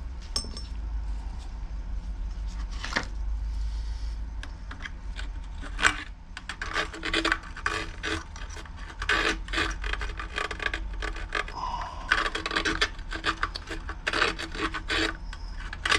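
Hands working parts of a Homelite 26cc string trimmer's fuel system back into place, with rubbing and scraping of plastic and rubber. A few separate strokes come at first, then close runs of short scratchy strokes from about six seconds in, as the parts resist going in.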